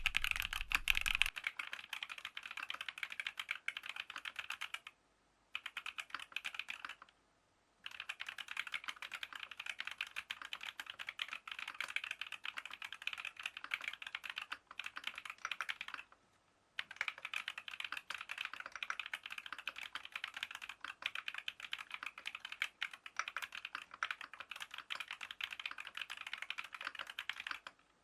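Fast, continuous typing on a Geon F1-8K custom mechanical keyboard with lubed TTC Holy Panda tactile switches and PBT keycaps, with three brief pauses.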